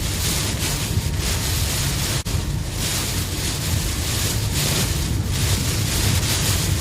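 Strong typhoon wind rushing and buffeting the microphone in gusts, with a heavy low rumble.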